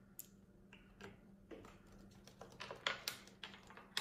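Light clicks and taps of plastic stacking rings being set down on a wooden tabletop, scattered and coming faster in the second half.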